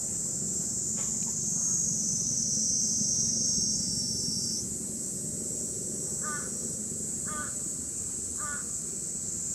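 A bird calling three times, short calls about a second apart in the second half, over a steady high-pitched hiss and a low outdoor rumble.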